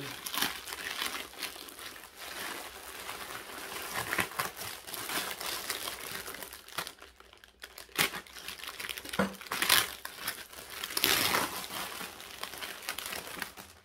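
Packaging crinkled and unwrapped by hand: a continuous rustle with several louder crackles in the second half.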